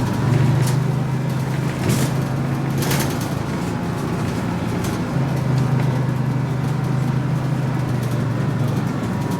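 City bus engine running with a steady low drone that drops away about three seconds in and comes back a couple of seconds later, over a constant rumble of road noise, with a few sharp clicks and rattles.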